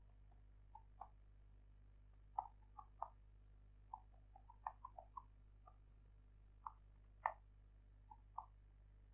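Faint, irregular clicks of computer keyboard keys being typed, one keystroke every fraction of a second with short pauses between bursts.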